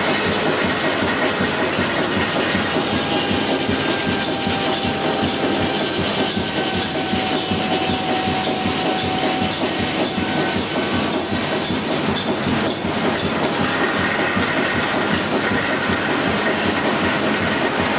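Old sawmill machinery running steadily: the mill's drive and saw benches make a dense mechanical noise with a fast, even clatter throughout.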